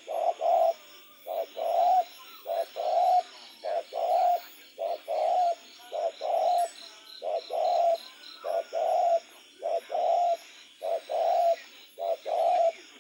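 Spotted dove cooing: a steady run of phrases, each a short note followed by longer, mellow coos, repeating about once a second.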